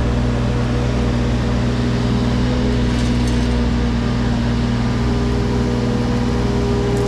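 Wacker Neuson mini excavator's diesel engine running steadily at a constant speed, with a few faint clicks about three seconds in.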